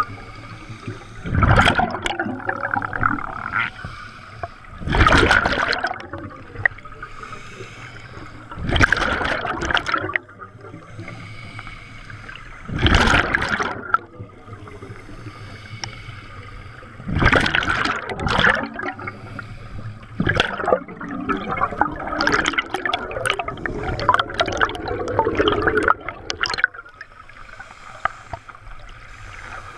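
Scuba diver's exhaled breath bubbling out of the regulator, recorded underwater: loud bubble bursts of about a second each, coming roughly every four seconds, then a longer, broken run of bubbling about two-thirds of the way through.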